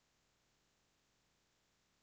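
Near silence: room tone with a faint steady hiss.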